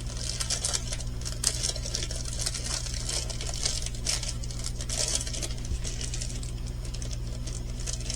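Small plastic bags of pearl diamond-painting drills being handled, with the beads rattling and clicking and the plastic crinkling in irregular bursts, over a steady low electrical hum.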